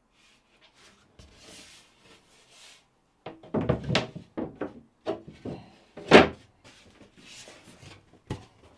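Thin plywood locker lids being handled and set down onto the wooden berth frame: faint rustling, then a run of hollow wooden knocks and thunks starting about three seconds in, the loudest about two-thirds of the way through.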